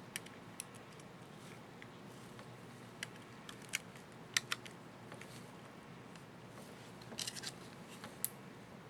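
Small sharp plastic clicks and ticks at irregular intervals, with a quick cluster near the end: a laptop space bar keycap and its retainer clips being handled and fitted.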